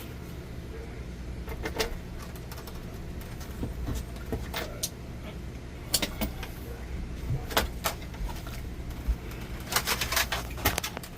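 Scattered clicks and knocks of parts and tools being handled during an air conditioner installation, over a steady low hum. The knocks come closer together near the end.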